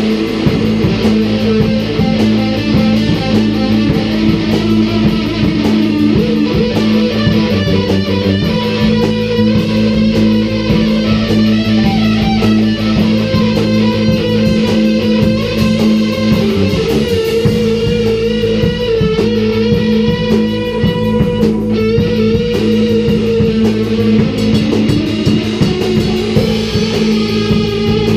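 Improvised instrumental rock jam played live by a trio: electric guitar holding long notes over bass guitar and a drum kit keeping a steady cymbal beat.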